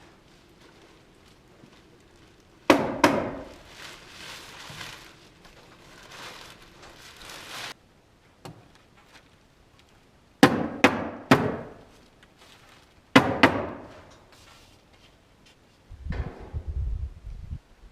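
Nails being driven into wooden siding boards: sharp knocks in quick groups of two or three, with scraping and rustling of boards being handled between them. A low rumbling starts near the end.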